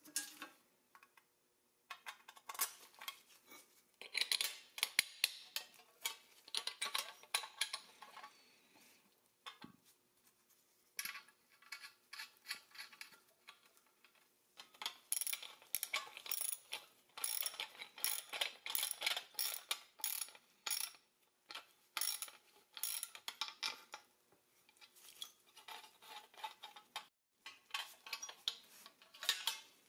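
Small steel toy-crane parts and tools clinking, tapping and clicking as they are handled and fastened together, with nuts and bolts being fitted to a powder-coated pressed-steel plate. The clicks come in irregular runs with short pauses.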